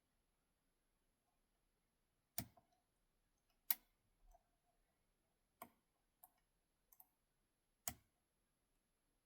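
About six small, sharp clicks at uneven intervals, a second or so apart: lock picking tools working inside an ASSA RUKO 500 pin-tumbler cylinder fitted with spool pins. Otherwise near silence.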